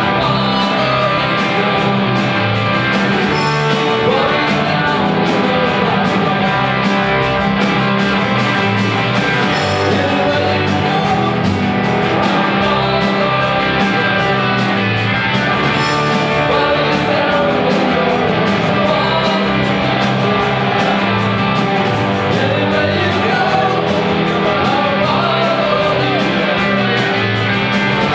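Live rock band playing a song, with guitars and a singer.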